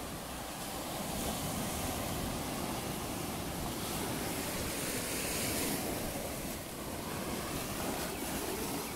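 Rough sea at high tide: waves breaking and washing over a muddy, rocky shore in a steady rush of surf.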